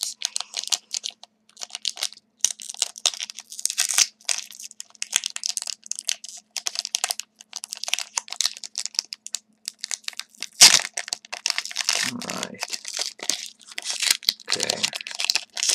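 Wrapper of a pack of hockey cards being handled and torn open: a long run of crinkling, tearing and sharp crackles, loudest about ten and a half seconds in.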